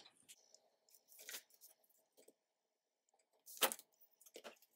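Faint handling of a paper card and a roll of double-sided tape on a cutting mat: a few soft rustles and clicks, with one short, sharper scrape or tap about three and a half seconds in and a smaller one just after four seconds.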